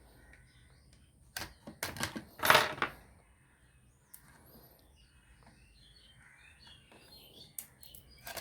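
Plastic locking clips of a speaker cabinet being pried loose: a few sharp clicks, then a louder plastic crackle and scrape, followed by quieter handling clicks near the end.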